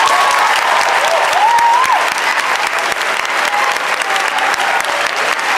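Theatre audience applauding at the end of a musical number, steady and dense clapping.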